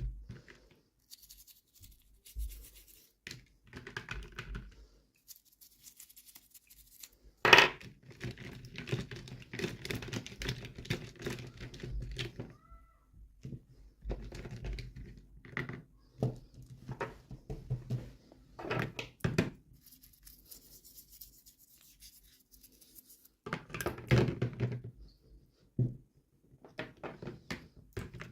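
Hands unboxing small toys: packaging tearing and crinkling, with scratching and small knocks as pieces are handled, and one sharp knock about seven seconds in.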